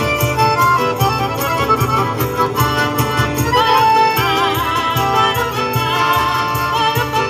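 Live folk band with accordion and acoustic guitar over a steady cajón beat. About halfway through, a woman's voice comes in singing with a strong vibrato.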